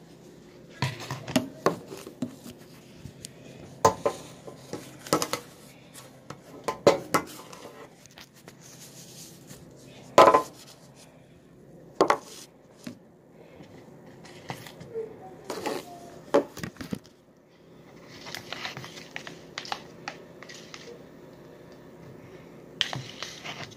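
A utensil clinking and scraping against a bowl at an irregular pace as a thick slime mixture is stirred.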